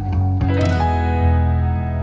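Background music with plucked guitar-like notes over sustained low tones, a new note struck about half a second in.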